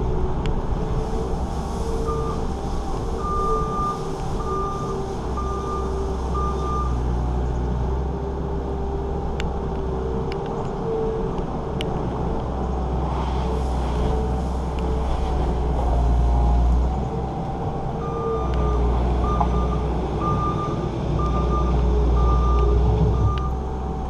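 New Holland L230 skid steer's diesel engine running as it works, with its backup alarm beeping in two spells of steady, evenly spaced beeps as the machine reverses, a few seconds in and again near the end.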